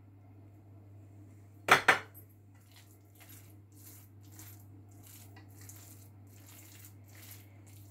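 A sharp clack of a utensil against the pan about two seconds in, then a wooden spatula scraping and stirring mashed potato and grated cheese stuffing in a nonstick pan, in short strokes about twice a second.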